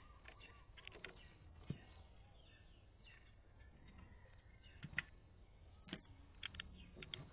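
Near silence: faint outdoor background with a few small, scattered clicks and knocks.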